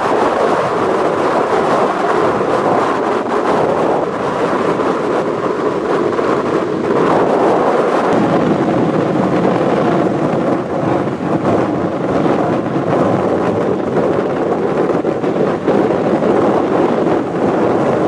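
Strong storm wind buffeting the microphone, over the steady rush of storm waves breaking on the shore.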